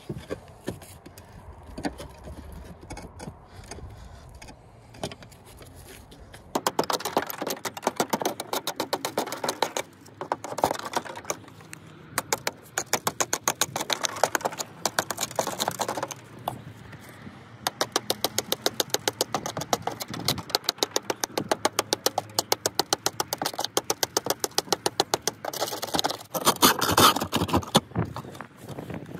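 Hand tool scraping and raking old mortar pointing out of a brick joint above lead step flashing. The rapid, sharp strokes come several a second in spells with short pauses, starting about six seconds in.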